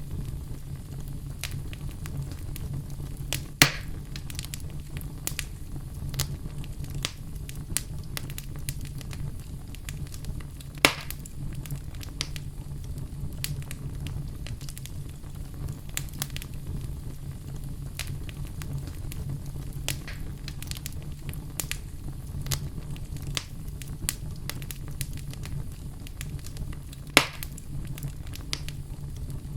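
Fire burning in a fireplace, crackling steadily with many small sharp pops over a low rumble. Three louder pops stand out, a few seconds in, about eleven seconds in, and near the end.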